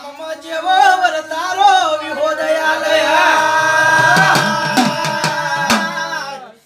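Men singing a Gujarati devotional jagar chant, sliding through the melody and then holding a long wavering note, with a few sharp strokes on small double-headed hand drums. The sound cuts off abruptly near the end.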